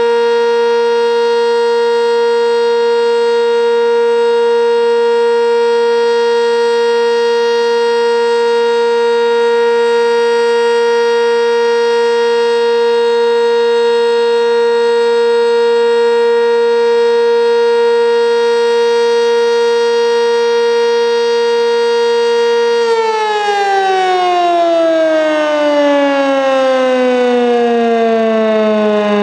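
Sentry 10V electromechanical outdoor warning siren sounding the steady Alert tone, one constant loud pitch held for over twenty seconds. About 23 seconds in the power cuts and the siren winds down, its pitch falling steadily as the rotor slows.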